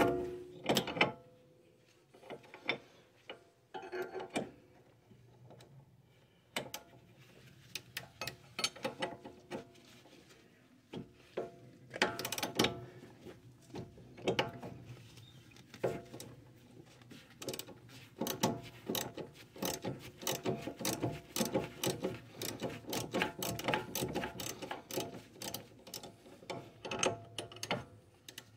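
Hand socket ratchet clicking as a bolt on the front suspension is backed out. The clicking comes in short bursts with pauses at first, then runs almost without a break through the last third.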